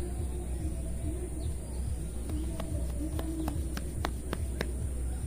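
Hair cracking in a head massage: about eight sharp snaps, roughly three or four a second, starting about two seconds in. Pigeons coo in the background over a steady low hum.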